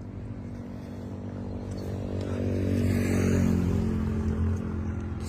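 A vehicle engine running steadily, growing louder over the first few seconds and then easing off slightly.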